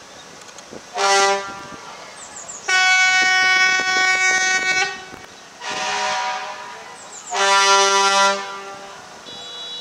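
Fire engine air horns sounding four steady blasts: a short one, a long one of about two seconds, then two more of about a second each.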